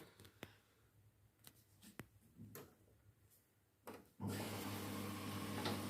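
An automatic washing machine switching back on: a few light clicks, then about four seconds in a steady low hum with a hiss of water starts as the machine resumes filling its drum.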